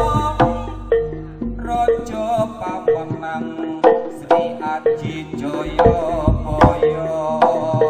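Background music: a melody line over regular drum strokes.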